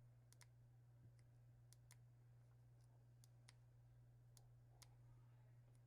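Near silence over a steady low hum, with faint, sharp clicks scattered irregularly: small lock parts, pins and the cylinder, being handled and turned.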